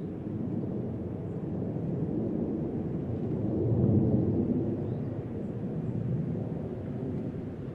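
Boeing B-52H Stratofortress passing overhead at altitude, its eight turbofan jet engines making a deep rumble. The rumble swells to its loudest about four seconds in and then slowly fades as the bomber moves away.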